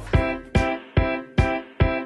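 Background music: a keyboard playing short repeated chords, about two and a half a second, each one dying away quickly.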